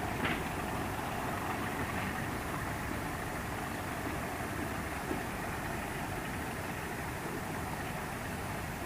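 Class 31 diesel locomotive with an English Electric V12 engine running steadily as it moves slowly over the tracks, with a light click just after the start and another about five seconds in.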